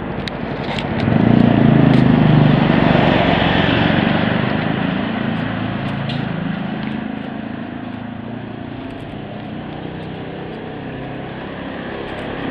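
Street traffic: a motor vehicle passes close by about a second in, its engine and tyres loud for a few seconds before fading into a steadier traffic noise.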